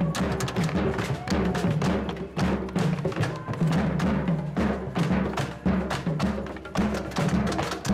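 Several bombo legüero drums played together with sticks in a steady rhythm: deep thumps on the skin heads mixed with sharp wooden clacks.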